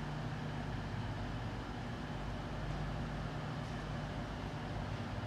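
Steady low hum of an East Midlands Railway train's engine idling at the platform, with no change in pitch or level.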